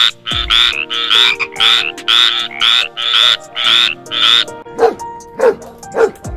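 A frog croaking in a fast, even series of loud calls, about three a second, which stop about four and a half seconds in. Then a dog gives a few short whining yips.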